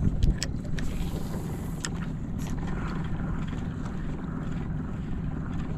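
Small outboard motor idling steadily, with wind on the microphone. A few sharp clicks and a low knock near the start come from the spinning reel and rod being handled.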